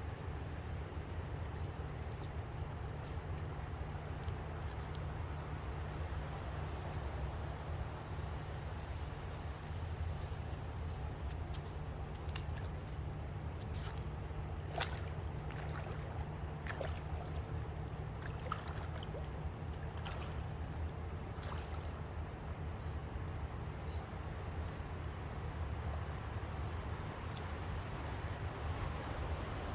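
Riverside ambience: a steady low rumble under a constant high-pitched insect drone, with scattered faint clicks.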